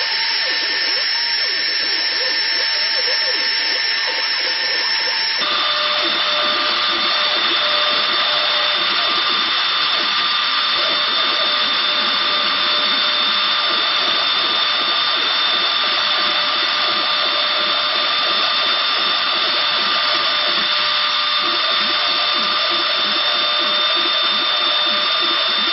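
CNC router spindle running while milling copper: a steady high whine over a loud hiss, its tones dropping to a lower pitch about five seconds in and then holding steady.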